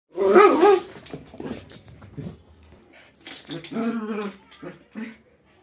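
Indian spitz dog vocalizing: a long wavering cry in the first second, then several shorter calls, and a second, steadier cry about four seconds in.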